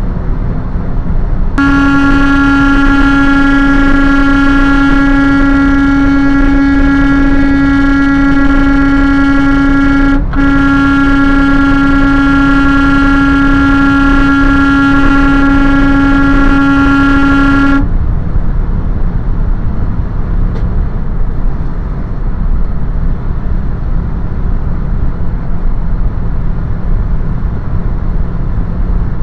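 Semi truck's horn held down in one long blast of about eight seconds, a split-second break, then held for about seven seconds more, over steady road and engine noise.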